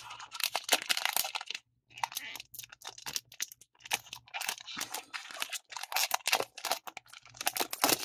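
A foil card booster pack being torn open and crinkled by hand: repeated bursts of crackling and tearing, with short pauses between them.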